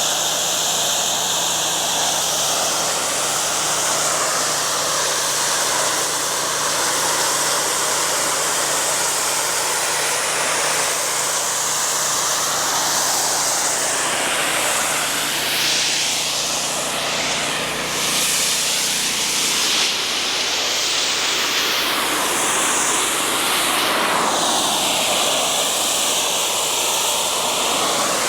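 Pressure washer spray blasting a concrete retaining wall: a loud, steady hiss whose tone sweeps and shifts as the spray moves over the surface, with a faint low hum underneath.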